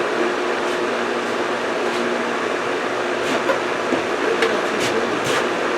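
A steady whir of running machinery with a faint low hum, and a few light clicks in the second half.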